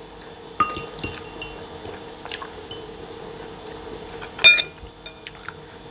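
A metal fork clinking against a ceramic bowl of macaroni: a few light clicks, then one sharp ringing clink about four and a half seconds in.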